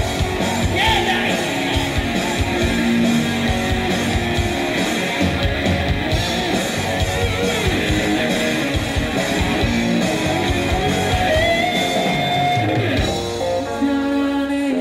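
Live rock band playing a mostly instrumental passage led by electric guitars over drums and bass; a note slides up and is held about eleven seconds in, and the drums drop back near the end.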